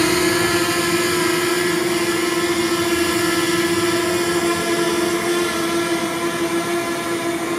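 DJI Mavic Mini drone's propellers humming steadily in flight, a steady buzzing drone note that gets a little quieter toward the end.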